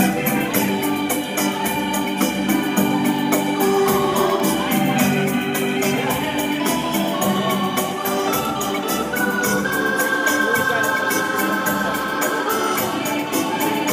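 Upbeat dance music with sustained keyboard notes and a steady, quick high tick keeping the beat.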